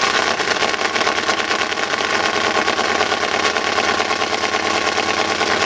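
Truck engine idling steadily, close by.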